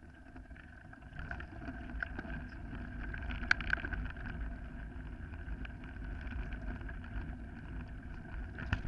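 Mountain bike rolling along a gravel forest track: tyre noise on loose gravel and wind rumbling on the microphone, growing louder over the first few seconds as it picks up speed, with scattered rattles and clicks, the sharpest about three and a half seconds in.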